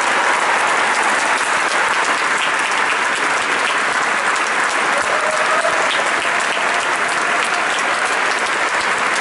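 A large audience applauding, a dense steady clatter of many hands clapping at once.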